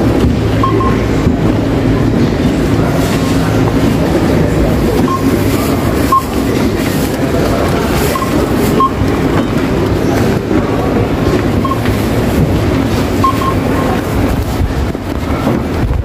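Supermarket checkout ambience: a steady low hum and murmur, broken about ten times by short single beeps from checkout barcode scanners.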